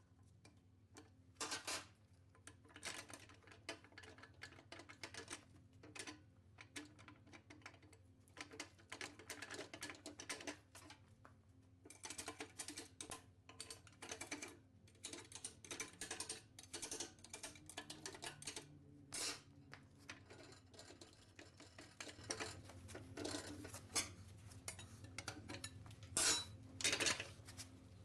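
Metal engine parts and hand tools clinking and clattering as they are handled and set down during an engine teardown: irregular knocks and clicks, some louder, over a faint low hum.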